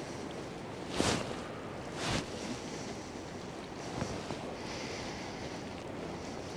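Wind blowing over the microphone with the wash of the sea on the shore, and two short, louder rushes about one and two seconds in.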